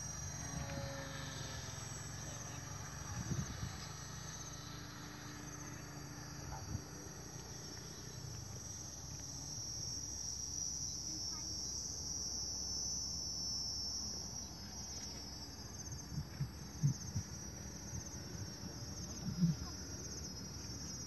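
Steady high-pitched insect chirring, like crickets, over a low rumble of wind on the microphone, with a few soft knocks near the end.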